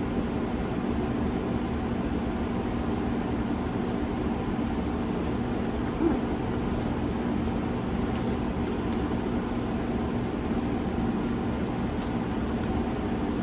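Room heater running with a steady whooshing noise and a constant low hum, with a few faint rustles of the plastic floss bag being handled.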